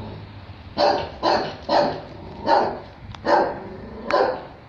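Small dog barking repeatedly, about six sharp barks in a loose, uneven rhythm.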